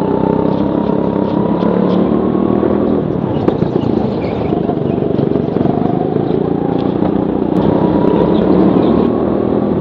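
A go-kart engine heard close up from the driver's seat, running hard through a race. Its pitch drops and then climbs again as the throttle is lifted and reapplied through corners.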